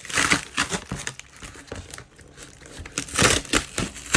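Packaging crinkling and rustling in irregular bursts as it is handled and pulled apart, loudest near the start and again about three seconds in.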